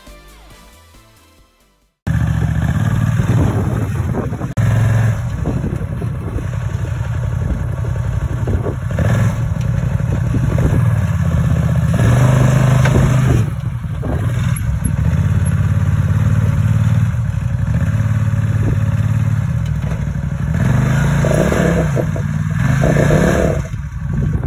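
Side-by-side UTV engine running under load as it crawls up rock ledges, revving up and easing off several times.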